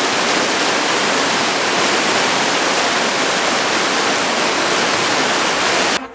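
Loud, steady rush of whitewater: a fast river with water pouring in jets from a wall onto rocks. It cuts off suddenly near the end.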